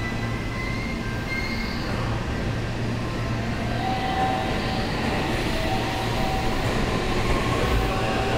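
Seibu 6000-series electric commuter train creeping to a stop at a station platform. It gives a steady low hum with faint high whining tones that come and go.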